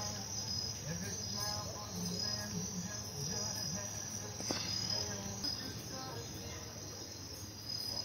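Crickets chirping steadily, a continuous high-pitched trill.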